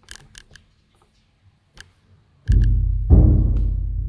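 A few faint light clicks, then from about two and a half seconds in, deep drum-like booms that ring on and die away, two in quick succession.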